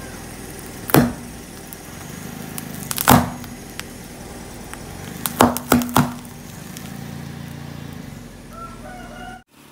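Hard lollipop candies cracking one by one under a slowly rolling car tyre: six sharp snaps, the last four in quick succession, over a low steady engine hum.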